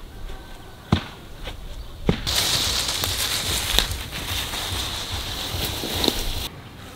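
Footsteps crunching and crackling through dry fallen leaves, starting about two seconds in and cutting off abruptly shortly before the end. Before that, a few sharp knocks.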